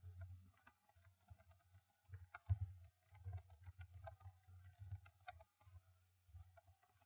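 Typing on a computer keyboard: faint, irregular key clicks, with a cluster of them in the middle, over a low steady hum.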